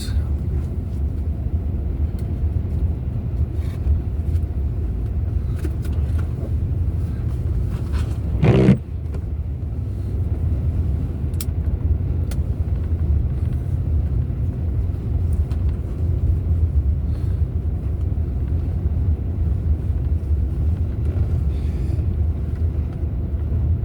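Steady low rumble of a vehicle driving on a snow-covered road, heard from inside the cabin: engine and tyre noise. About eight and a half seconds in there is one brief, louder sound.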